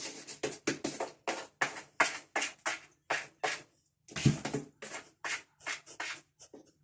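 A cat scratching with her paws, a quick series of short rasping strokes, about two or three a second.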